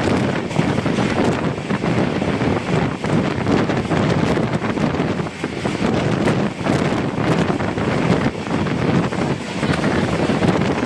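Wind buffeting a microphone held out of a moving passenger train, over the rumble of the train running on the track. It is loud and gusty.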